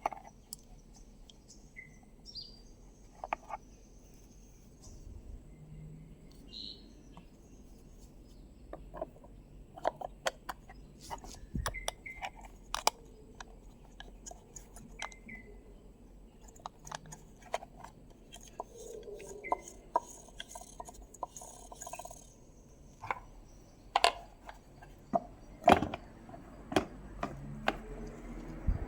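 Scattered sharp clicks and knocks, more frequent and louder in the second half, with a few faint bird chirps in the background.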